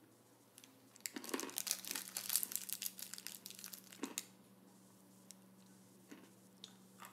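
Small candy wrapper crinkling as it is handled, a busy crackle from about a second in to about four seconds in, then a few faint ticks.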